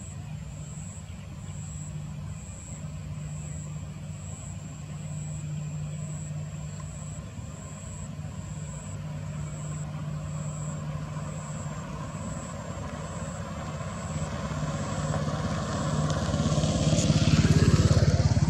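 ATR 72 twin-turboprop airliner on final approach with its gear down: a steady low drone of its engines and propellers, with a few steady low tones. It grows louder through the last few seconds and is loudest near the end as the aircraft comes closer.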